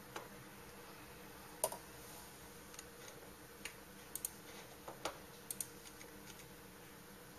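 Computer mouse clicks: about ten sharp clicks at uneven intervals, some as quick double-clicks, the loudest about a second and a half in, over a faint steady hum.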